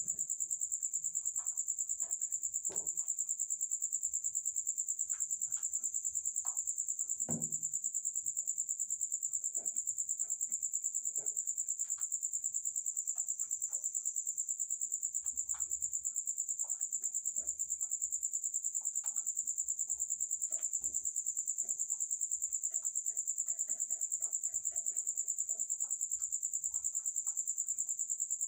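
Crickets trilling steadily, a continuous high-pitched pulsing chorus. Faint scattered clicks and rustles come from rabbits eating at a feeder and shifting about in wood-shaving bedding.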